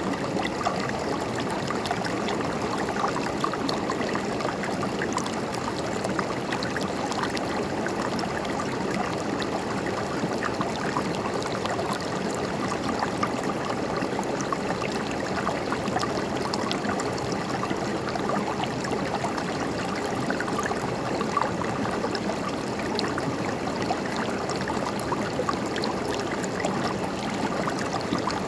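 River water flowing and gurgling over rocks, a steady rush with small splashes throughout.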